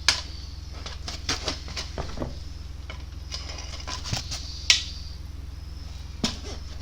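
Metal clinks and knocks of brake caliper parts and hand tools being handled, about a dozen short sharp ones, the loudest near the start and a little before five seconds in, over a steady low hum.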